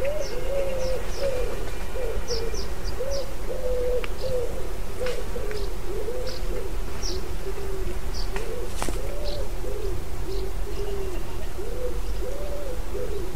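Distant bagpipes playing a tune, only the melody line carrying, with small birds chirping briefly now and then over it.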